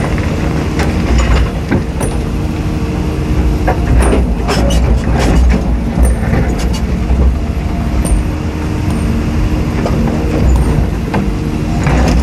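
Caterpillar 320D excavator's diesel engine running steadily under load with the hydraulics working as it digs. A cluster of knocks and rattles comes about four to six seconds in, from the bucket working the rock and soil.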